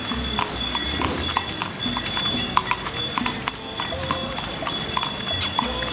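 Horse's hooves clip-clopping on the street as it pulls a coachman's carriage, a steady walking rhythm of about two to three hoof strikes a second.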